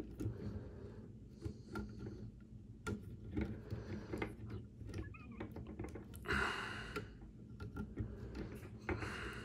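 Faint clicks and taps of small action-figure parts being handled as a toy robot's hands are fitted around a small accessory, with a short breath-like rush of noise about six seconds in.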